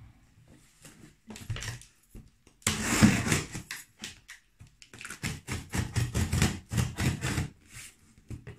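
Scissors cutting through the packing tape on a cardboard box, with scraping and crackling of tape and cardboard. The loudest stretch comes about three seconds in.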